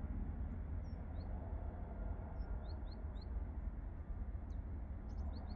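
Airbus A320neo-family airliner on approach with its gear down, its jet engines a steady low rumble. Small birds give short rising chirps in a few groups, about a second in, midway and near the end.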